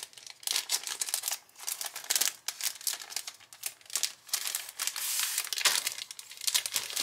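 Clear cellophane packaging crinkling as it is handled, in irregular crackles that are busiest about five seconds in.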